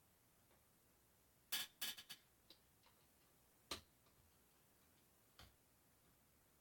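Faint, scattered small clicks and taps of machine screws and lock washers being fitted to fasten ceiling fan blades onto the fan: a quick cluster of about five clicks a second and a half in, then single clicks near four and five and a half seconds.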